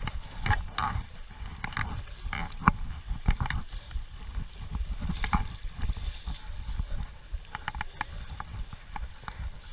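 Someone wading across a river: water sloshing with irregular knocks and clunks, over a steady low rumble.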